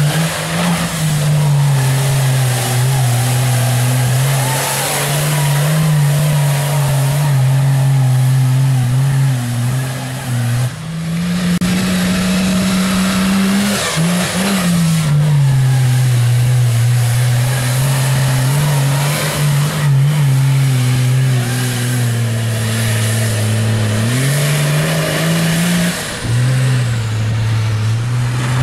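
Lifted mega mud truck engines running hard at high revs while plowing through a mud pit, the pitch holding steady, then stepping up and falling back as the throttle and load change.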